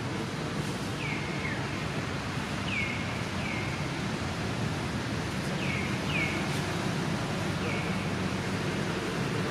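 Outdoor ambience: a steady hiss with short, high chirps that fall in pitch, coming in pairs about every two seconds, four pairs in all.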